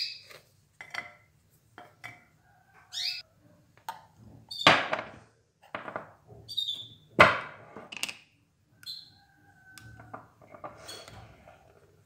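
Kitchen handling sounds as square biscuits are set down on a black plate on a cloth: a string of light clicks and knocks, the loudest about five and seven seconds in, with brief high ringing tones.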